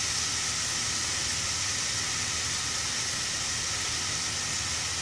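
Chopped onion, tomato and spices sizzling in oil in a saucepan, a steady even hiss.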